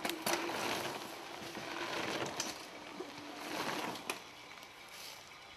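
A mountain bike riding past on a dirt trail: tyres crunching over dirt and dry leaves, with clicks and rattles, swelling a few times and dying away about four seconds in.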